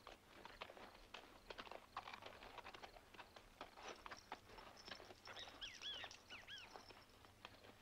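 Faint, irregular footsteps of several people on dirt ground. A few short, high chirps come about five and a half seconds in.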